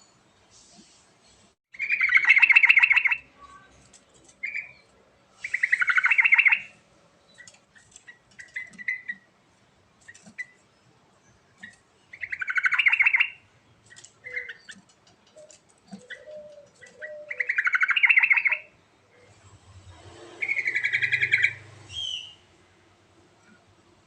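Yellow-vented bulbul (trucuk) singing: five loud, bubbly warbled phrases a few seconds apart, each about a second long, with short softer notes between them.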